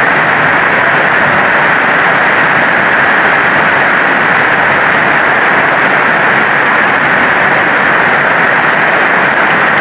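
Heavy rain drumming steadily on a corrugated metal roof, an even hiss with no let-up.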